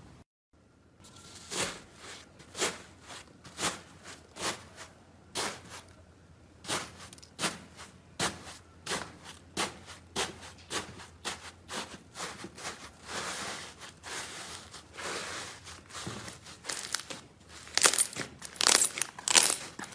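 Slime being pressed and squeezed by hand, giving a run of crisp crackling pops about one or two a second, coming thicker and louder near the end.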